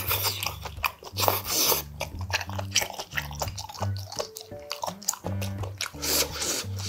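A man slurping and chewing boiled baby octopus dipped in sauce: wet mouth clicks and smacks, with a breathy slurp about six seconds in. Background music with a steady, pulsing bass line plays throughout.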